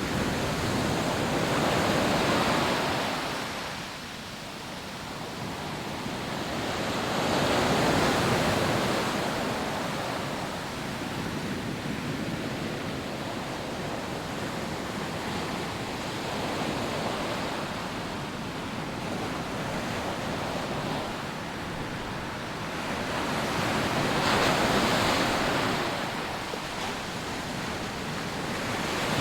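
Rough sea waves breaking on a sandy beach, a steady wash of surf. Big breakers swell up about two seconds in, about eight seconds in and again near the end.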